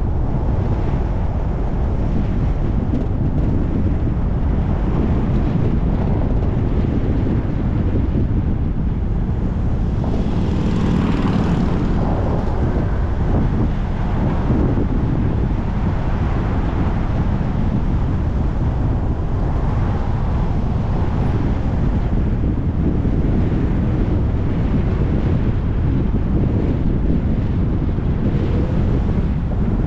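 Car driving with steady road and engine rumble and wind buffeting the microphone. A louder rushing swell comes about ten to twelve seconds in.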